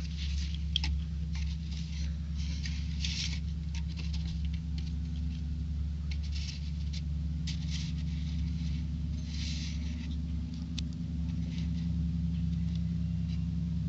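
Plastic building-brick pieces and a minifigure being handled, scraped and set down on a plastic plate, giving irregular short scratching and rustling sounds and a few small clicks. A steady low hum runs underneath.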